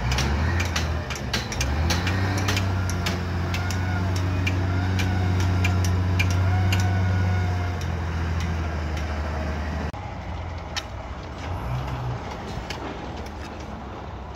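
Wheel loader's diesel engine running hard under load as it digs and lifts dirt, a steady low drone with a wavering whine over it and scattered sharp clicks and knocks. About ten seconds in it cuts off abruptly to a quieter, uneven mechanical noise.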